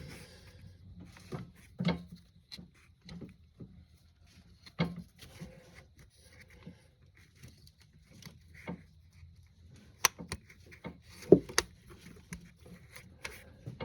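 Scattered small clicks, taps and rubbing of hand work: a halved plastic caulking-tube tip being worked onto the quick-connect coupling of a car fuel line. Two sharper clicks stand out a little after the middle.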